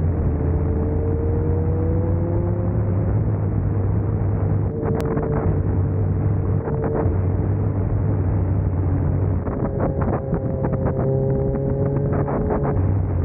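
Motorcycle with a loud aftermarket exhaust pipe running while riding at steady speed, its engine note climbing slowly. A run of short crackles comes near the end.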